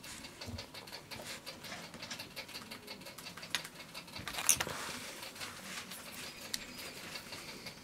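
Small clicks, taps and scratching of fingers handling a buzzer and its wires on a carbon-fibre drone frame, with one sharper click about four and a half seconds in.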